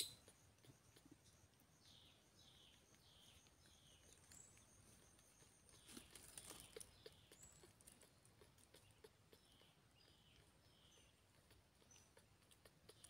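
Near silence: faint forest ambience, with soft high chirps repeating through it, a few faint clicks and a brief rustle about halfway through.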